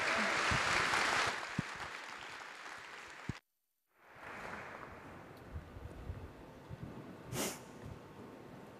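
Audience applauding, fading away over the first three seconds. After a half-second dropout in the sound, only quiet hall tone remains, with one brief noise burst a little before the end.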